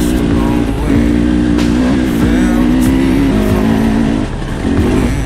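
Dirt bike engine running at a fairly steady throttle while riding, the note dropping briefly twice, with a few sharp knocks.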